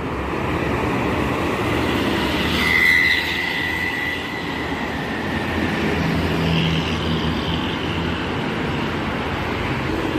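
Highway traffic, intercity buses among it, passing at speed: a steady wash of tyre and engine noise, loudest about three seconds in, with a thin high whine at that point.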